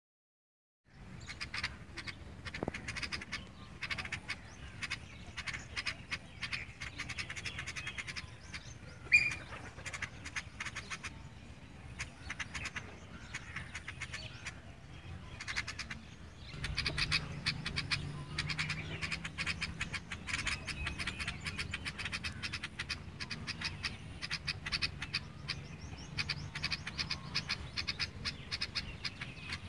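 Sparrows chirping, a dense stream of rapid short chirps that starts about a second in and never lets up. A low hum joins about halfway through.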